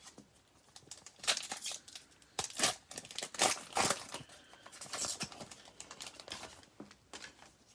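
A trading-card pack's wrapper being torn open and crinkled: a string of short rips and rustles, loudest about one to four seconds in.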